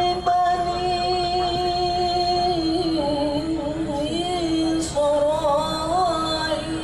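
Man's voice in melodic Quran recitation: one long note held steady for about two and a half seconds, then melismatic turns that wind up and down.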